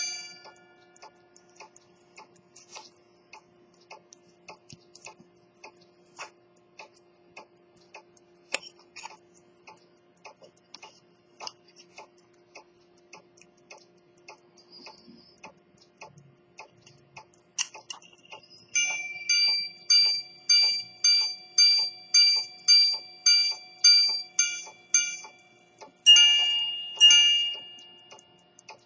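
Swiss quarter-repeater pocket watch ticking, then its repeater striking: a run of evenly spaced gong strikes of one pitch for the hours, followed by two strikes at a different pitch. The restored repeater mechanism is chiming the time on demand.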